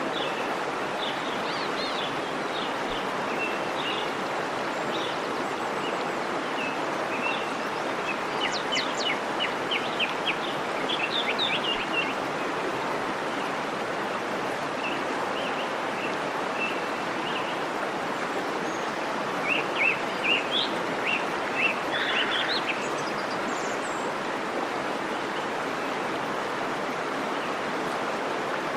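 Waterfall rushing steadily, with birds chirping in two spells, about a third of the way in and again a little past the middle.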